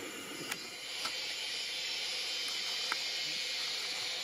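Outdoor field ambience: a steady high-pitched hiss that gets slightly louder about a second in, with a few faint clicks.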